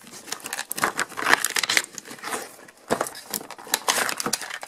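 Cardboard and clear plastic toy packaging crinkling and crackling in irregular bursts, with sharp ticks, as a toy figure is worked loose from its box insert.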